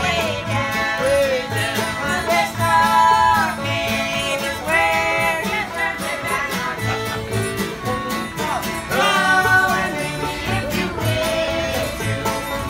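Acoustic bluegrass band playing, with a woman singing lead over banjo, acoustic guitars, mandolin and upright bass. The bass plucks a steady beat.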